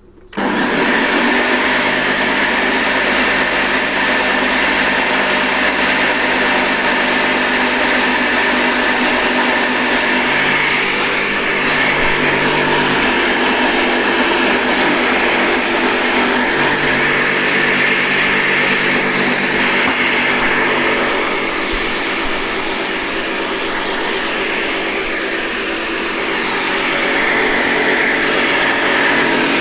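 Ninja Smart Screen blender motor starting up and running steadily, whirring as it blends a thick mayonnaise emulsion after a spoonful of water has been added.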